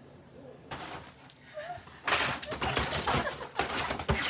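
A dog romping on canvas fabric: rustling, scuffling and knocking that start about two seconds in, after a short whine.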